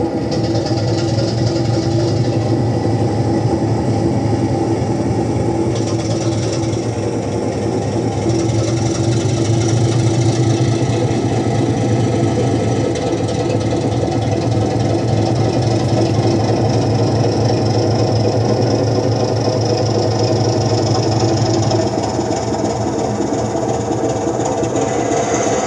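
Recorded class 25 diesel locomotive engine sound, played through exciters on a model railway's back scene and following a DC model loco as it runs. A steady, low engine drone whose note shifts a few times, about 6, 13 and 22 seconds in, as the sound notches with the controller.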